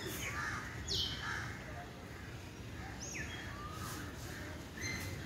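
Birds chirping: a few short, high calls that sweep sharply downward, about a second in, around three seconds in and again near the end.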